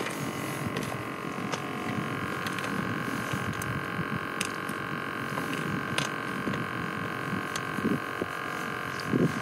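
Wind buffeting the microphone, with a faint steady hum and a few light clicks.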